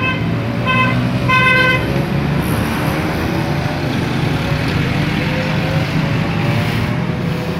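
Road traffic rumbling steadily, with a vehicle horn giving three short toots in the first two seconds, the last one the longest.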